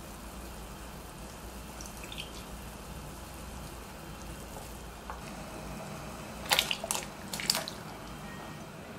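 Beef broth simmering quietly in a pot. About six and a half seconds in comes a short cluster of splashes and clatters as sliced rice cakes are tipped from a glass bowl into the broth.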